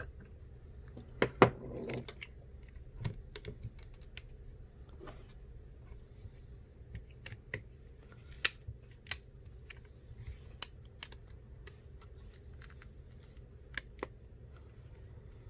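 Small tools clicking and tapping on the parts of an iPhone 7 during reassembly, in short irregular ticks, with a sharper double knock about a second and a half in. A steady low hum runs underneath.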